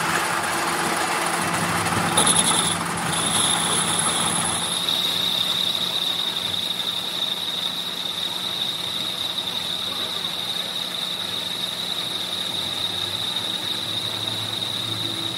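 Metal lathe running and cutting, its tool turning down a cylindrical blank for a new camshaft bush: a steady machine hum, opening with a sharp click, with a steady high whine that comes in about two seconds in.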